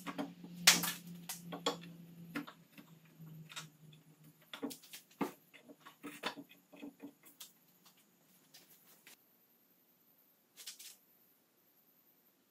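Wood chisel paring and knocking out the waste of a notch cut in a softwood board: a series of sharp clicks and taps, dense for the first seven seconds and then only a few. A low hum underneath fades out about four seconds in.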